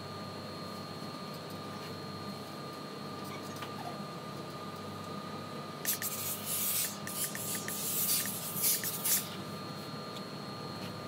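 Professional steam iron letting out several spurts of hissing steam while pressing a T-shirt, between about six and nine seconds in, over a steady machine hum with a faint high whine.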